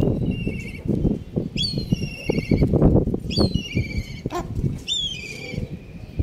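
Hens pecking rice from a woven bowl: a busy run of close pecks and rustles. Over it come about four high, warbling bird calls, each lasting up to a second.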